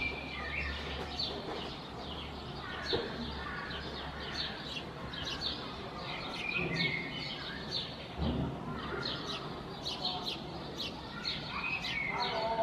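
Small birds chirping: many short, quick chirps, with a brief whistled phrase that comes back three times.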